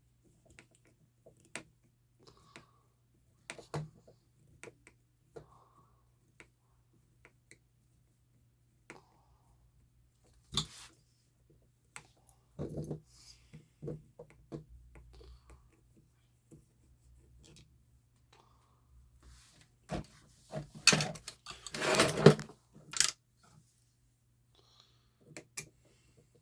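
Small hand tools and plastic and metal parts of an RC truck being handled during disassembly: scattered light clicks and taps, with a louder burst of rattling and clatter about three-quarters of the way through.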